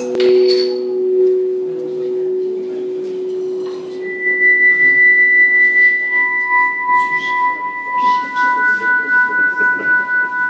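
Amplified guitar playing long, held single notes that overlap. A low note fades out as higher notes come in about four, six and eight seconds in, and the later notes pulse quickly and evenly.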